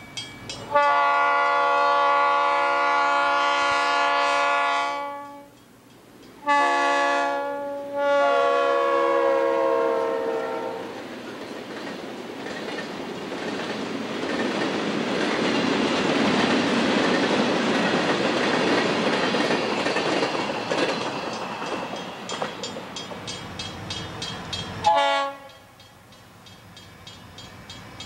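A diesel freight locomotive's multi-tone air horn sounds a long blast, a short one and a third that drops in pitch as it goes by. Then the freight cars roll past with steady wheel and rail noise. Near the end the sound cuts to a railroad crossing bell ringing in an even rhythm.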